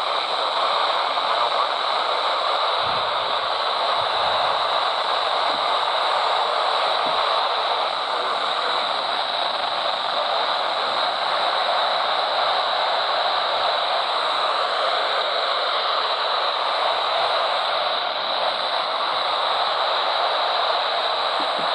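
Steady radio static hiss from a weather radio's speaker, with no broadcast voice on the channel.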